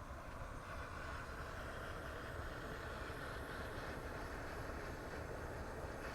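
Blowtorch flame running steadily as it heats a fluxed copper pipe joint up to soldering temperature, before the solder is fed in.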